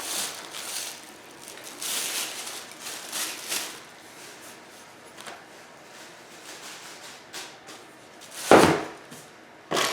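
Office-chair parts and their packaging being handled and moved about: soft rustling and light knocks, with one louder, brief rustle-and-knock about eight and a half seconds in.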